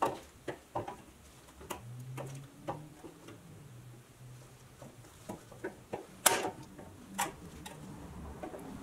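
Irregular sharp clicks and taps of small metal toy parts and hand tools being handled on a workbench, the loudest a little over six seconds in. A faint low hum sounds for a few seconds in the middle.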